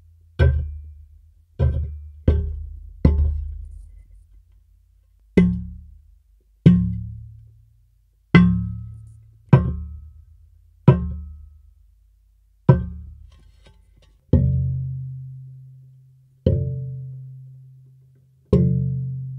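Red perforated sheet-metal chair with a tubular steel frame struck with a felt-headed mallet, about a dozen times at uneven intervals: each hit is a soft knock followed by a low ringing hum that dies away. From about two-thirds through, the strikes ring longer and steadier.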